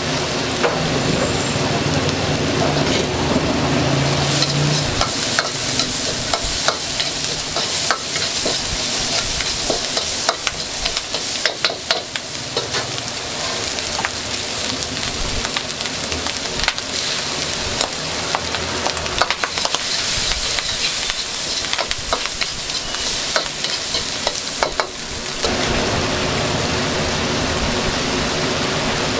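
Fried rice sizzling in a hot wok while a spatula strikes and scrapes the pan in quick, irregular strokes. Near the end the strokes stop and only a steady hiss remains.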